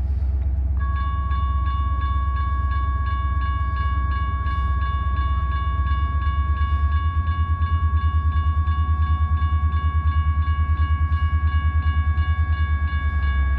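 Railroad grade-crossing warning bell starting up about a second in and ringing on in rapid, evenly repeated dings, the signal that a train is approaching. A low steady rumble runs underneath.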